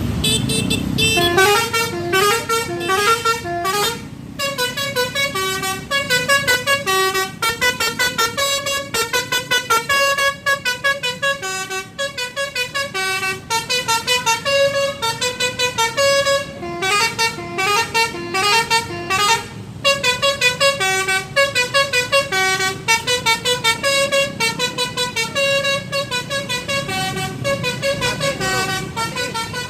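Basuri multi-tone telolet horn on the SJM Trans bus "Ratu Maher", playing a fast melody of short stepping notes over and over, with a low rumble underneath.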